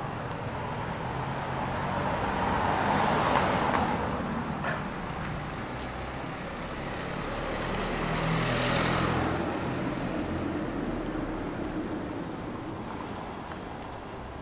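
Two cars driving past one after another on a city street, their engine and tyre noise swelling and fading away, the first about three seconds in and the second about nine seconds in, over a low hum of traffic.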